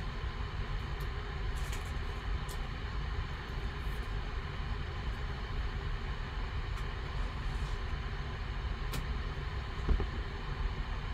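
Trading cards being handled and flipped through, giving a few faint clicks and slides, over a steady low background rumble. One louder knock comes near the end.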